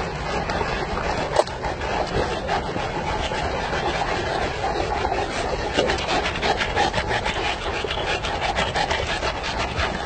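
Continuous rustling and scraping with many small crackles: branches, twigs and undergrowth brushing and snapping as a pack of Saint Bernards and the person filming move through forest brush. The crackles grow denser about halfway through.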